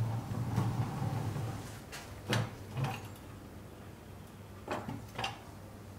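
Restored 1940s Buddy L toy dump truck rolling across a tabletop, its wheels rumbling for about a second and a half. Then come four light knocks as gloved hands handle the truck.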